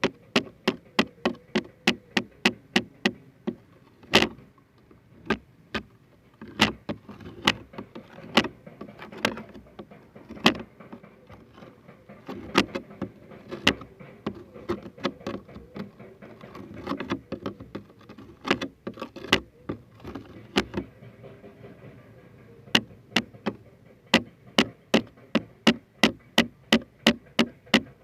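Sharp taps or clicks in quick runs of about three to four a second, thinning to single taps with a soft scratchy rustle in the middle, then speeding up again near the end.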